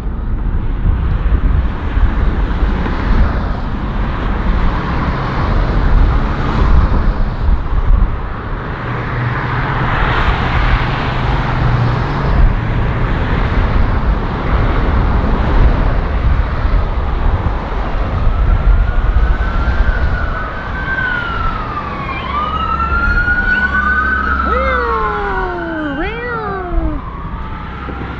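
Strong gusting wind buffeting the microphone, a heavy low rush that swells and eases. About two-thirds of the way in, a siren's rising and falling wail sweeps over it for several seconds.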